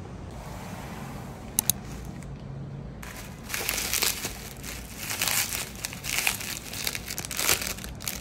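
Bubble wrap and plastic packaging crinkling as a parcel is unwrapped by hand, starting about three seconds in. Before that, two quick sharp clicks.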